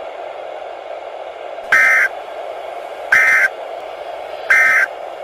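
Three short bursts of warbling Emergency Alert System data tones, about a second and a half apart: the End of Message code that closes the alert. A steady low static hiss runs under them.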